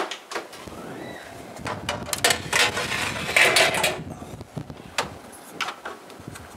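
Oven door opening, a metal baking tray scraping and rattling onto the oven rack, and the door being pushed shut. Sharp clicks and knocks, with a louder rough scraping stretch in the middle.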